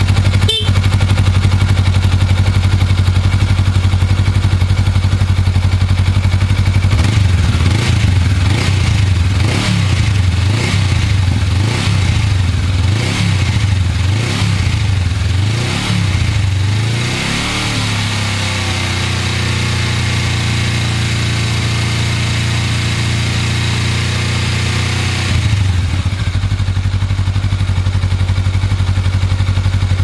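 2017 Honda Rebel 500's 471 cc parallel-twin engine running on its stock exhaust, idling steadily at first. From about seven seconds in to about seventeen it is revved in a run of quick throttle blips, about one a second. It then settles back to a steady idle, with one more short blip near the end.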